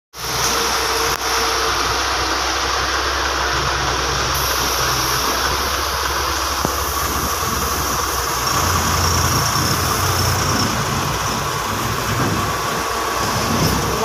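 Heavy diesel engines of a Caterpillar excavator and a dump truck running steadily, with a low rumble that gets a little stronger about eight and a half seconds in.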